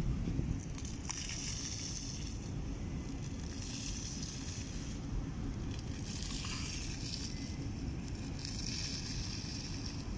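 Outdoor background noise: a steady low rumble with a hiss that comes and goes.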